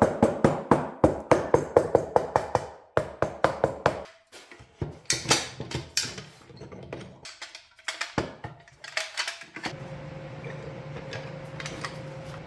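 Clamps being tightened on a glued-up board of hardwood strips: a fast run of ringing clicks, about five a second, then scattered knocks. A steady hum comes in for the last few seconds.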